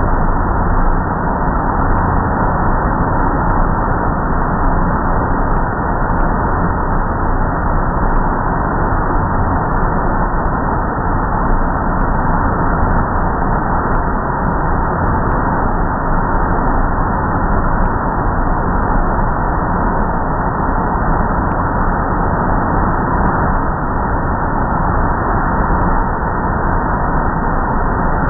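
Car-wash tunnel air dryer blowers running: a loud, steady rush of air with a faint constant whine.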